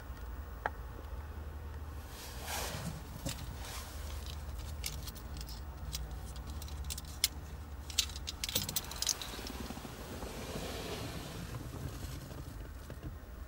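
A car flip key and its ring jingling and clicking in the hand, with a run of short sharp clicks around the middle, over a low steady rumble.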